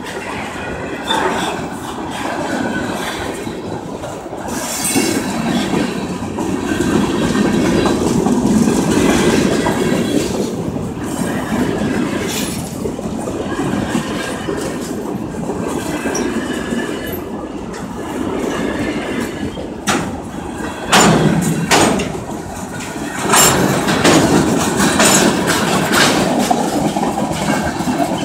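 Freight train of covered hopper cars rolling past close by: a steady rumble of steel wheels on the rails, with sharp clacks and bangs as the wheels cross rail joints, loudest from about twenty seconds in.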